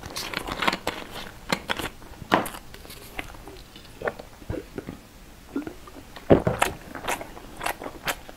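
Close-miked eating and handling sounds: chewing, a plastic drink bottle crinkling as it is handled and drunk from, and a string of short clicks and crackles, with a louder knock about six seconds in.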